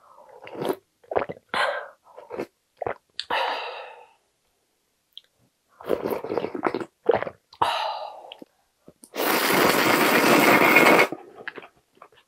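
Hot ramyeon broth slurped from a wooden ladle: a string of short slurps, then one long, loud slurp lasting about two seconds near the end.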